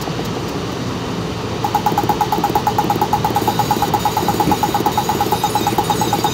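Car driving on the road, heard from inside the cabin: a steady engine and road hum. About a second and a half in, a fast, even pulsing starts and keeps going.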